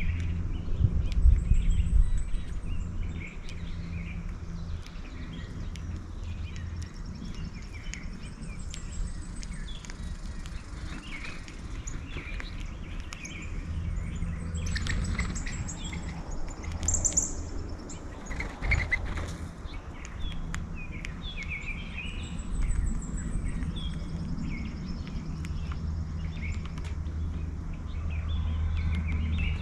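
Several small songbirds chirping and calling in short, scattered notes, over a steady low hum.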